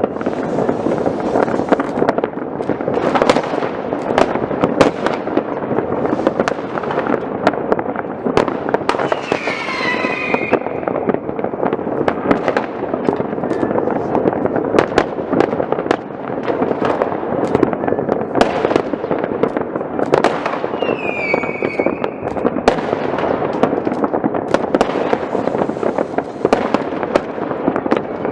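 New Year's Eve fireworks: a dense, continuous barrage of bangs and crackling from many rockets and firecrackers. A whistling rocket sounds about nine seconds in and another about twenty seconds in.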